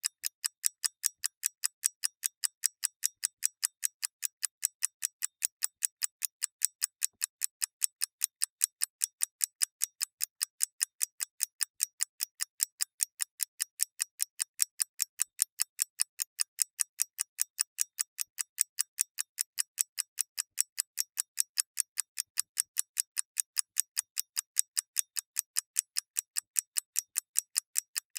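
Clockwork mechanism ticking steadily, a crisp, even run of sharp ticks several times a second with no low end.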